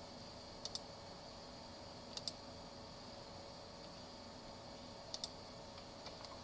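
Computer mouse button double-clicked three times, each a pair of quick sharp clicks, with a couple of fainter clicks near the end, over a faint steady hum.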